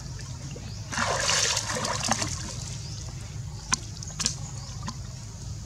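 Water splashing as young macaques swim in a pool, with a burst of splashing about a second in and a few sharp clicks later.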